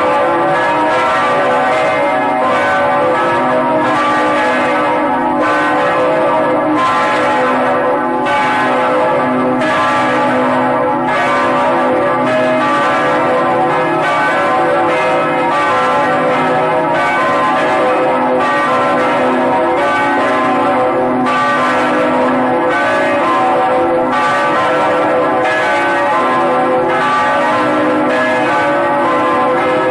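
Several bells pealing, struck again and again in quick succession, their ringing tones overlapping without a break.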